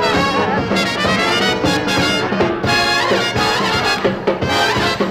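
Big-band orchestra's brass section, trumpets and trombones, playing an instrumental passage in a swing song, reproduced from a vinyl LP.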